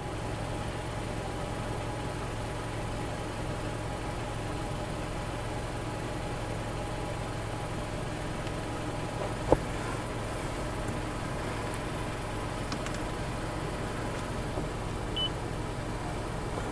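2016 Mazda CX-5 idling, a steady low hum heard from inside the cabin, with one short sharp click about nine and a half seconds in.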